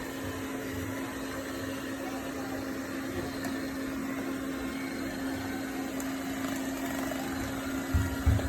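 Robot vacuum cleaner running, a steady whirring hum with a constant low tone. A few low thumps come near the end.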